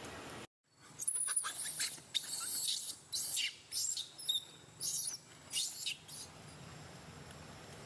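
Baby macaque crying: a string of short, very high-pitched squeals in quick succession, the distress cries of a frightened infant.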